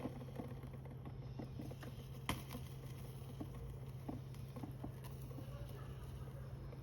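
Small wood fire crackling, with scattered light pops and one sharper pop a little over two seconds in, over a steady low hum.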